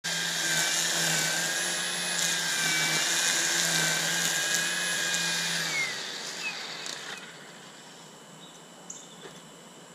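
A small motor whirring steadily with a high whine, then winding down and fading about six seconds in.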